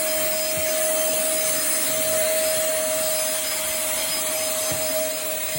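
A pemacom cordless handheld vacuum cleaner running steadily, a constant motor whine over an airy hiss.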